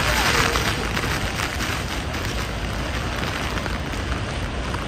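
Steady roar of Niagara's Horseshoe Falls heard up close in the mist, mixed with spray and wind hitting the microphone. It is a dense, even rushing noise, slightly louder in the first half second.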